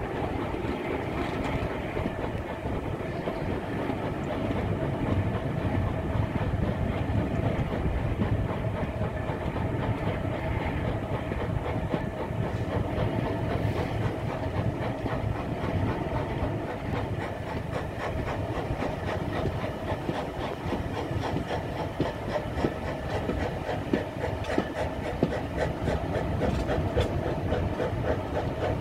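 Passenger coaches behind a steam locomotive running on the line, heard from an open carriage window: a steady rumble of wheels on rail with clickety-clack from the rail joints, and a few sharper knocks near the end.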